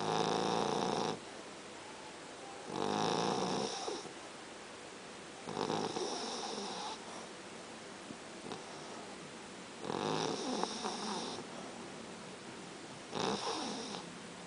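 French bulldog snoring: five snores, each lasting about a second, coming roughly every three to four seconds.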